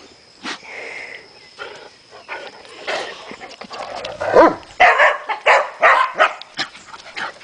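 Dogs play-fighting, with scattered scuffling clicks and then a quick series of loud barks from about four seconds in.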